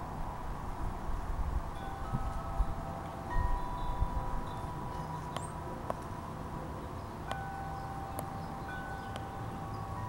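Wind chimes ringing: several different tones are struck one after another, starting about two seconds in, and each rings on for a few seconds. A few low thumps sit under them in the first half.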